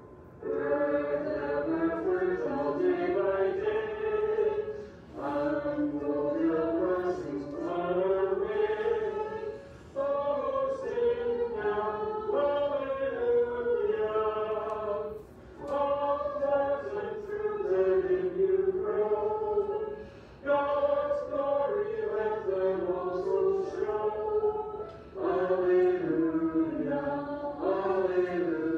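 A small group of voices singing a hymn's 'alleluia' refrain. The phrases last about five seconds each, with a short breath between them.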